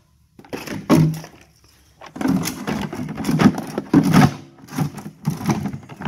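Plastic housing and latches of a Milwaukee M18 cordless wet/dry vacuum clunking and rattling as it is handled and put back together by hand: a single knock about a second in, then a busy run of knocks and rattles from about two seconds on.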